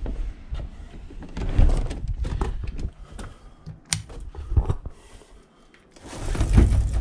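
Knocks, thuds and rustling from someone moving about and handling things, with a single sharp click of a wall light switch about four seconds in.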